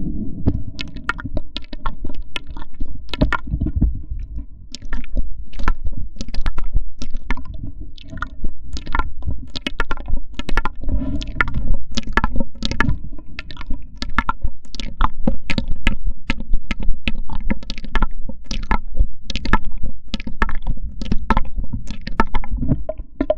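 Close-miked foley sounds imitating a washing machine's water hose: irregular clicks and crackles, a few a second, over a steady low rumble.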